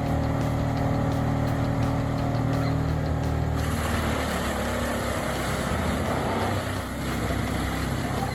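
Heavy diesel machinery running steadily. About three and a half seconds in, the sound changes to a rougher, noisier churning.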